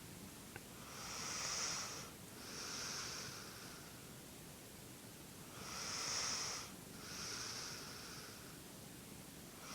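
A sleeper snoring with airy, hissing breaths rather than a deep rumble: two breath cycles, each a hissing draw and release in quick succession, with a quiet pause of about two seconds between them.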